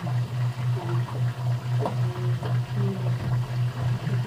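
A low mechanical hum that pulses evenly, about four beats a second.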